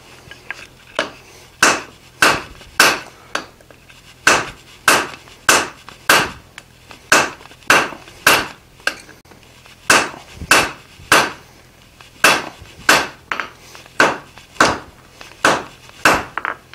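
Blacksmith's hand hammer striking glowing-hot steel held in tongs on the anvil, with steady blows about two a second and a few short pauses.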